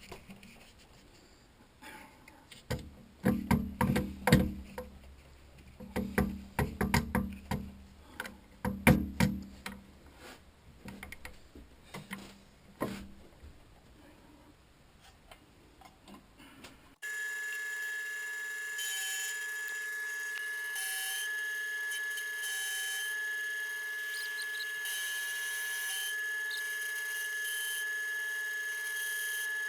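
Scattered knocks and clatter of metal parts and tools being handled. About seventeen seconds in, a steady machine-tool sound with a high whine cuts in abruptly and runs on unchanged.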